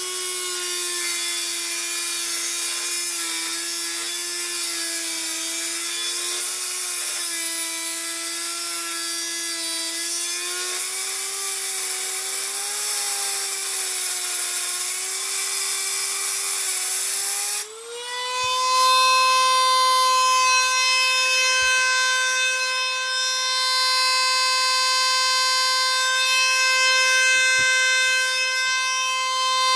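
Small power tool motor running with a steady whine, its pitch wandering slightly as it works. About 18 seconds in it dips briefly, then climbs to a higher, steadier whine.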